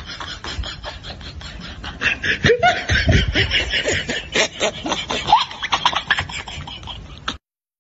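People laughing, louder from about two seconds in, cutting off abruptly near the end.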